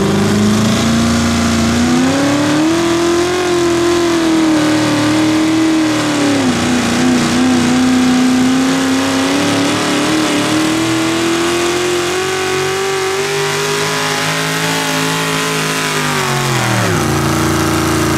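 Hot rod pulling tractor's engine held at high revs through a pull. Its pitch climbs in the first couple of seconds and wavers through the middle, then drops sharply near the end as the throttle comes off.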